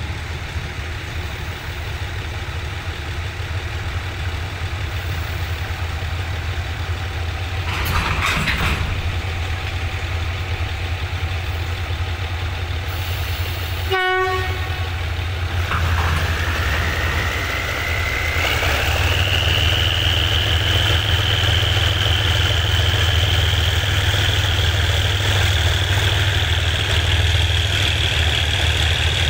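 Shunting diesel locomotive's engine running steadily as it moves a string of container flatcars. About halfway there is a short toot, and from just after that a high-pitched squeal from the moving wagons rises and then holds steady to the end.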